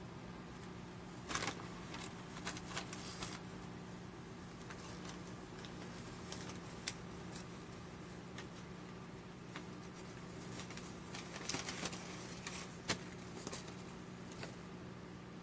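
Paper bag rustling and crinkling in scattered bursts as a cat's head pushes into and moves inside it, busiest a couple of seconds in and again near the end, with one sharp crackle.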